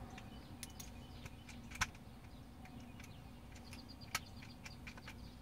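Faint, scattered metallic clicks and light taps as the ignition lock cylinder and key are worked against the housing flange, the cylinder refusing to seat. Two sharper clicks stand out, a little under 2 seconds in and again about 4 seconds in.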